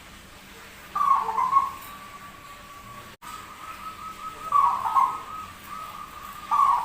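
Zebra dove (perkutut) with an unusual voice cooing: three short rolling coo phrases, about a second in, near five seconds and at the end.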